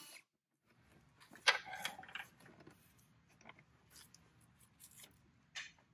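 A cordless drill/driver's whine cuts off at the very start. Then faint handling noise follows: a sharp clatter with a brief ring about a second and a half in, and scattered light clicks and taps of tools and plastic parts.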